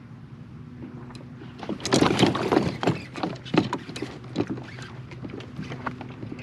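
A hooked bass thrashing and splashing at the surface, a loud run of irregular splashes from about two seconds in that dies down after about four and a half seconds. Under it, the kayak's electric trolling motor hums steadily.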